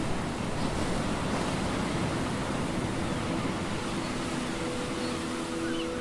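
Ocean surf washing steadily, a continuous rushing hiss. About halfway through, a few held musical notes fade in underneath.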